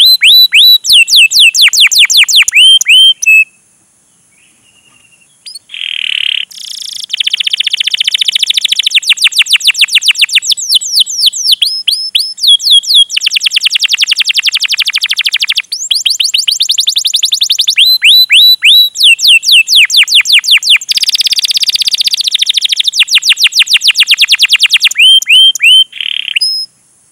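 Domestic canary singing: long runs of sharp, rapid, downward-sweeping "cuit cuit" chirps alternating with dense rolling trills. The song pauses briefly about four seconds in and breaks off just before the end.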